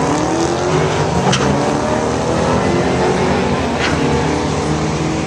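Two drag-racing cars accelerating hard off the line side by side, their engines revving with pitch climbing over the first couple of seconds as they pull away down the strip.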